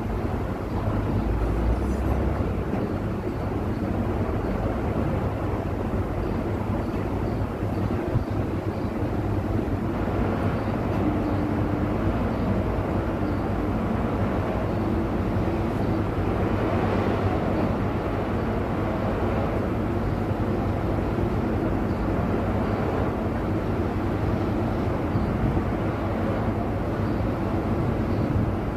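Steady drone of a large engine running, an even low hum that holds without change.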